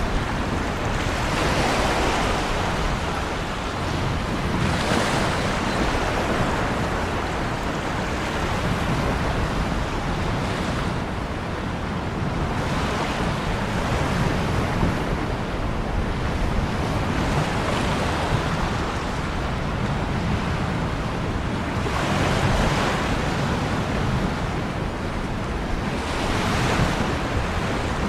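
Ocean surf: waves breaking and washing in, each swelling up every few seconds over a continuous rush of water.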